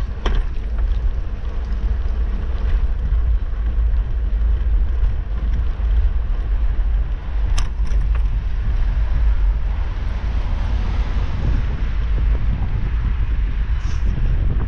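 Steady low rumble of wind on the microphone and tyre noise from a bicycle rolling along an asphalt path, with a single sharp click about halfway through.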